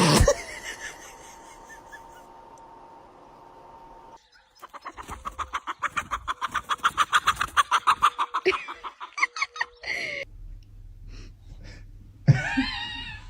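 An animal's rapid run of repeated calls, about six a second, swelling and then fading over a few seconds, with a single louder call near the end.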